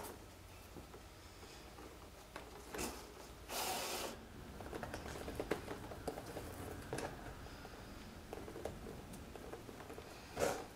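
Hand saddle-stitching leather: thread drawn through the stitch holes with a short rasp, twice, about a third of the way in and near the end, with small clicks and rustles of the needle and leather in between.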